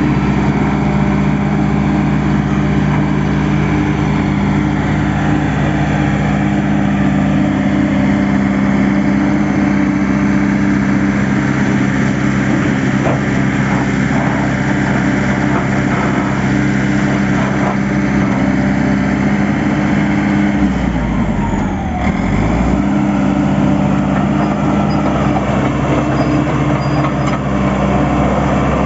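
Caterpillar D5H bulldozer's diesel engine running steadily. About two-thirds of the way through, its note changes for roughly two seconds with a deeper rumble, then settles back to the same steady running.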